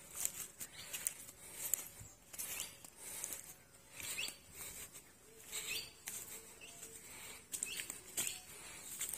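Footsteps crunching and rustling through dry fallen bamboo leaves on field soil, in irregular crackling steps, with a few short bird chirps mixed in.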